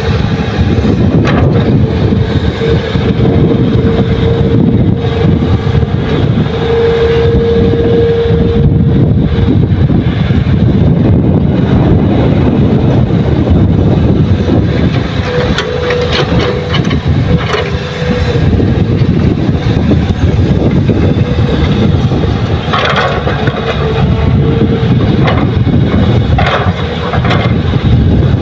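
Diesel engines of an excavator and dump truck running hard while loading soil: a loud steady rumble with a thin whine that comes and goes. A few knocks and rattles in the last several seconds.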